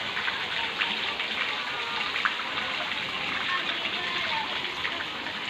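Water gushing steadily from a pipe into a catfish pond, splashing on the surface, with laying hens clucking now and then.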